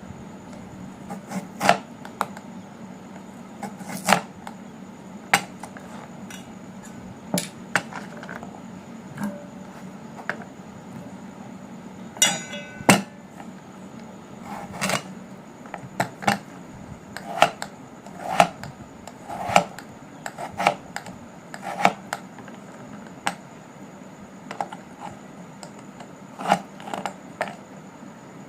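Kitchen work: irregular sharp knocks and clinks of utensils against a board or a pot, with a short rattle about halfway through, over a faint steady hum.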